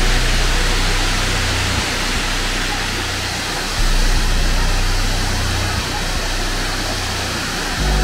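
Waterfall pouring into a rock plunge pool: a steady rushing roar with a deep rumble underneath, swelling about four seconds in.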